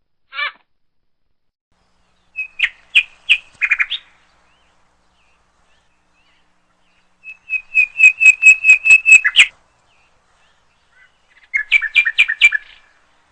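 Woodpecker calling in rapid runs of sharp, repeated notes, about eight a second: a short run about two and a half seconds in, a longer one of about a dozen notes in the middle, and another near the end.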